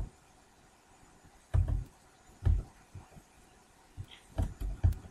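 A few soft, low thumps: one about a second and a half in, another a second later, then three in quick succession near the end.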